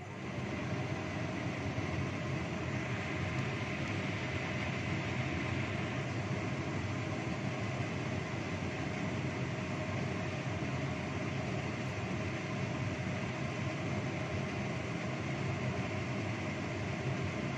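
Kitchen cooker-hood extractor fan switched on, coming up to speed right at the start and then running with a steady whir and hum.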